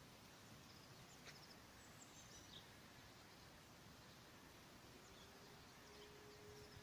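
Near silence with a few faint bird chirps. About five seconds in, a faint steady tone rises slightly in pitch and then holds: a distant E57 motor siren starting up.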